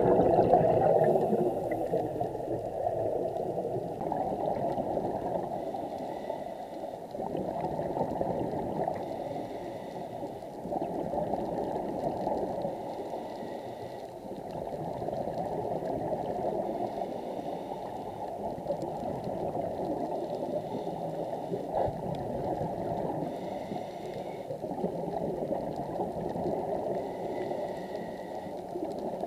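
Bubbling, rushing water heard underwater, a steady low wash that swells and fades every few seconds.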